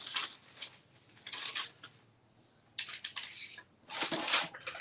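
Paper and small craft supplies being rummaged through and handled on a desk, rustling and clattering in several short bursts with a brief lull about two seconds in.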